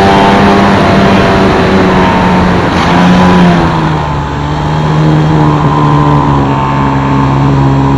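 Multiplex FunCub's electric motor and propeller, heard close from an onboard camera: a steady whine over air rushing past the microphone. About three and a half seconds in, the pitch drops and stays lower as the throttle is eased back.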